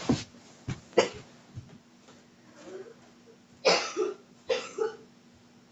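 A person coughing in a string of short, sharp coughs, with the two loudest close together about four seconds in: a coughing fit from having inhaled a bit of French fry while eating.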